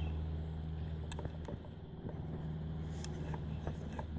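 Light, irregular clicks from a Yamaha QT50 moped's bare crankshaft and connecting rod being turned and handled by hand, over a steady low hum.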